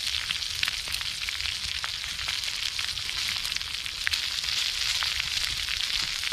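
Eggs and tomato slices frying in melted lard in a thick-walled aluminium pan over a small wood-burning stove: a steady sizzle with many fine crackles.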